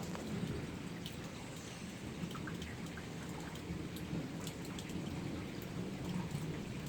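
Heavy rain falling steadily during a thunderstorm, with scattered drips and drops ticking close by.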